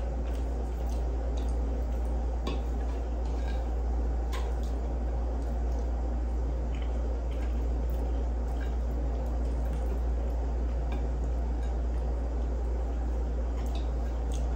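Metal fork clinking and scraping on a ceramic plate while cutting and picking up food, with a few sharp clinks scattered through, the clearest about two and a half and four and a half seconds in, along with chewing. A steady low hum runs underneath and is the loudest thing.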